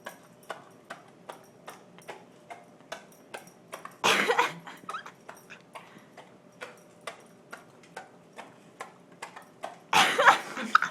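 A dog smacking and licking at peanut butter stuck in her mouth: a steady run of short wet clicks, about three a second, with a louder breathy snort about four seconds in and another near the end.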